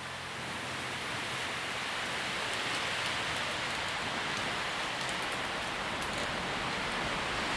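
A steady rushing hiss that swells up over the first couple of seconds, with faint crackling ticks above it. A low sustained drone fades out just at the start.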